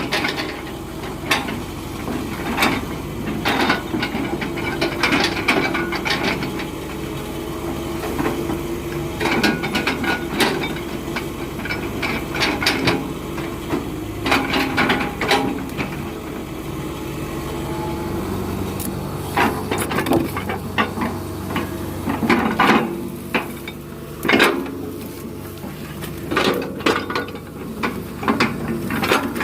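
Heavy diesel machinery running steadily, with frequent sharp wooden knocks and metallic clunks, typical of an excavator lifting and dropping rubber-tree logs.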